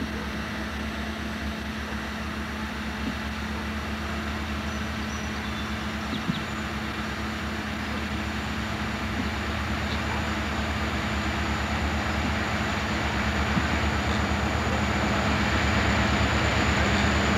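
Multiple-unit diesel freight locomotives, C&NW and GE units among them, working hard under power with a steady low exhaust rumble and drone. The sound grows steadily louder as the locomotives approach.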